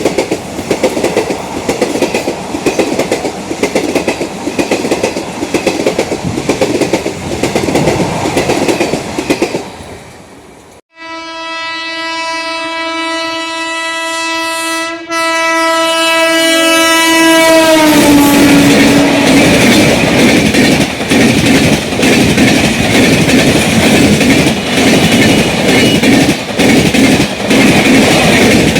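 Indian Railways passenger train running over the rails with rapid wheel clickety-clack. About 11 seconds in, after a sudden cut, a locomotive horn sounds one long steady blast of about seven seconds, and its pitch drops at the end as it passes. The loud clatter of the coaches rolling by follows.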